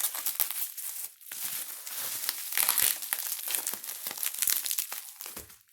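Packing wrap crinkling and tape being pulled and torn as a heavily taped, individually wrapped package is worked open by hand, a continuous irregular crackle with brief pauses.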